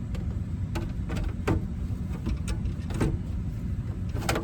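Scattered sharp clicks and knocks, about six in four seconds, from hands working the head unit and plastic dash parts, over a steady low rumble.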